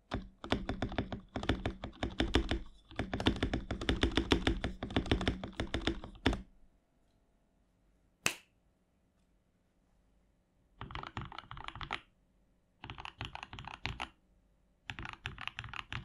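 Typing on a CM64 60% hot-swap mechanical keyboard fitted with Gateron Yellow linear switches and PBT cherry-profile keycaps. A fast run of keystrokes lasts about six seconds, a lone sharp clack comes about two seconds later, then three short bursts of typing follow near the end.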